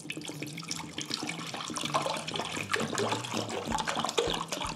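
Water poured in a stream from a plastic bottle into a bamboo bowl, splashing steadily and growing a little louder as the bowl fills.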